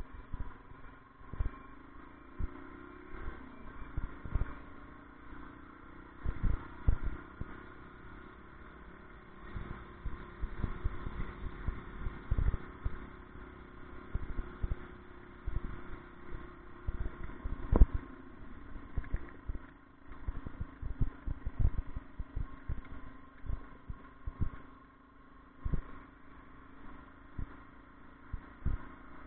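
Ride noise from a camera mounted on a moving vehicle: irregular knocks and rattles as it is jostled over the road surface, the sharpest about eighteen seconds in, over a steady low hum.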